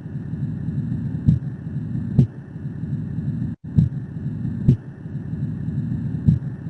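Heart sounds heard through a stethoscope: paired beats, a first and a second heart sound, repeating in a slow, even rhythm about every two and a half seconds over a steady rushing noise. There is a brief dropout about three and a half seconds in.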